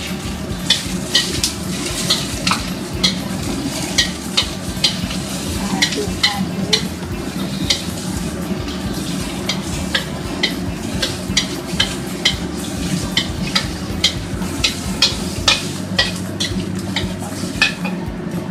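A metal spatula clinking and scraping against a stainless steel wok while food is stir-fried, over a steady sizzle of frying. The clinks come roughly twice a second, with a short lull near the middle.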